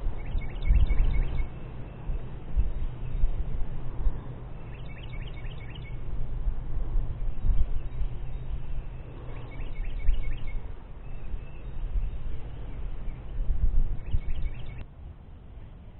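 A songbird singing a short chirping phrase four times, about every four to five seconds, over uneven low wind noise on the microphone.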